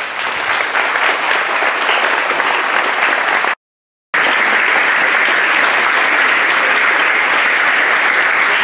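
Audience applauding steadily, with a sudden half-second dropout to silence about three and a half seconds in.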